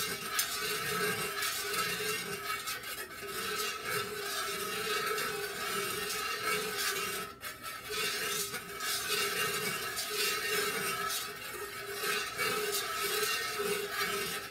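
Metal utensil scraping and rubbing inside a metal candle-wax pouring pitcher as melted wax and fragrance oil are stirred slowly and gently, without a break.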